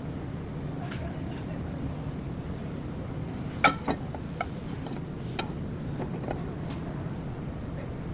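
Car engine idling steadily, with several sharp metallic clinks over it, the loudest a little past halfway.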